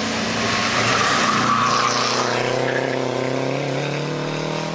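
Renault 5 rally car's engine running hard as the car takes a bend and passes close by, loudest about a second or two in, with a burst of tyre noise as it corners, then its engine note fading as it drives away.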